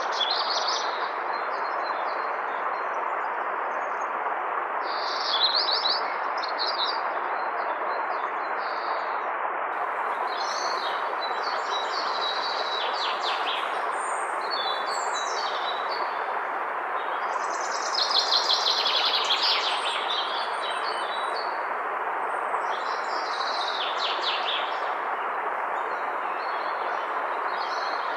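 Steady rushing of river water, with songbirds chirping in bursts over it, loudest about five seconds in and again for a couple of seconds around the two-thirds mark.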